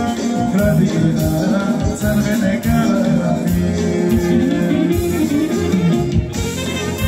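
Live folk dance band playing Macedonian dance music with a steady beat.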